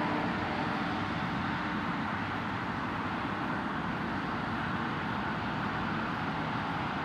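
Four-engined Airbus A340 jet engines rumbling steadily as the airliner rolls along the runway, easing slightly in level as it goes.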